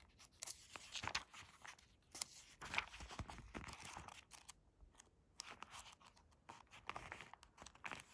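Pages of a prayer book being leafed through: a run of faint, irregular paper rustles and flicks while searching for a place in the book.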